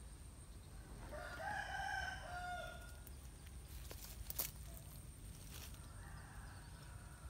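A rooster crowing once, starting about a second in and lasting under two seconds. A few sharp clicks follow a couple of seconds later, the loudest a little past the middle.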